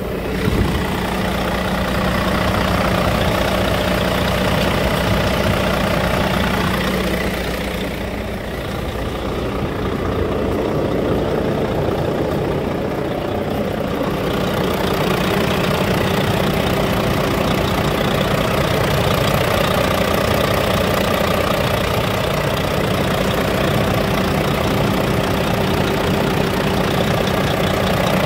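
Volvo D13 inline-six diesel truck engine idling steadily, just started on the first crank with a new inlet one-way valve and pressure return valve fitted to cure its hard starting.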